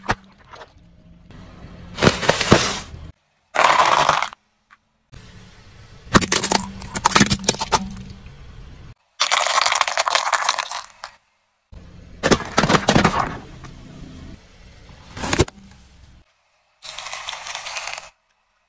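A car tyre rolling over and crushing brittle objects such as plastic eggs and dry crackers, giving repeated cracking and crunching. It comes in about six short bursts, each cut off abruptly.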